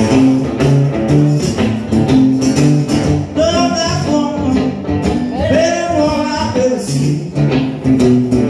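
Live blues on an acoustic guitar and an electric Fender Stratocaster played through an amp, with a steady repeating low guitar figure and a slide guitar line gliding between notes.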